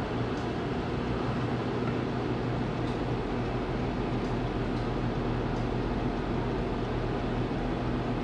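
Convection oven's fan running with a steady, even hum during baking, with a few faint, irregular ticks.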